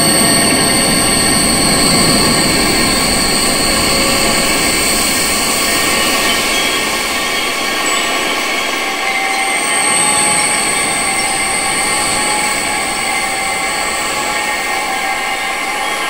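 Wind rushing steadily, swelling in gusts early on and again about two-thirds of the way through, with sustained high-pitched whistling tones held over it.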